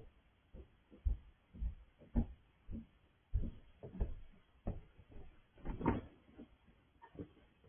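A series of dull thumps, roughly two a second, the heaviest cluster about six seconds in.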